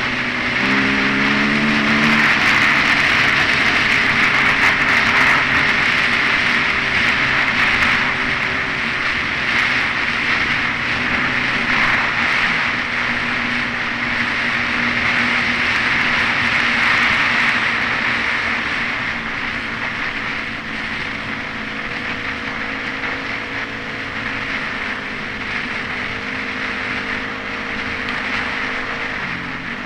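Yamaha WR250 dirt bike engine running under way, heard from a helmet camera with a strong rush of wind over it. The engine note steps in pitch a couple of times in the first two seconds, holds steady, then falls near the end.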